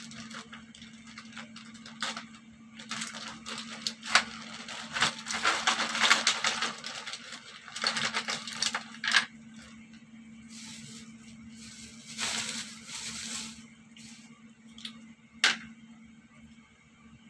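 Clear plastic bag crinkling and rustling as it is handled and opened, and scallop shells clattering out onto a plastic tray, with a few sharp clicks as shells knock together.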